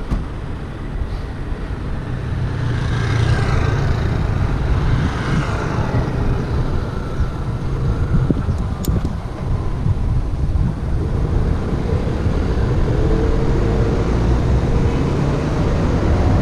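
Road traffic: cars and scooters passing on a busy street, heard from a moving bicycle over a steady low wind rumble on the microphone.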